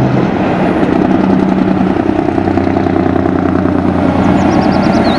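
Diesel engine of a Volvo semi-truck running steadily as the truck drives slowly along the road. A short run of high chirps comes near the end.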